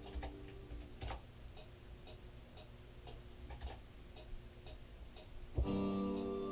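Beat playback thinned to a steady high ticking, about two ticks a second, with a few faint low thumps under it. The melodic loop comes back in about five and a half seconds in.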